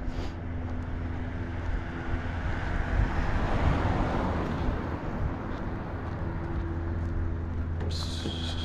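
A vehicle passing on the street: road noise swells and fades, loudest about halfway through, over a steady low hum. A short high hiss comes near the end.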